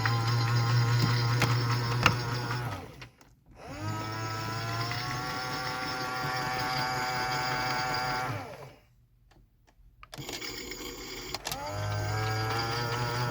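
AEG/Electrolux Lavamat 84950 washing machine in its main wash: the drum motor runs with a whine, stops about three seconds in, starts again with a rising whine, then stops again for about three seconds. During that pause there are a few clicks, and then the motor picks up once more. This is the wash action turning the drum one way, pausing, then turning it again.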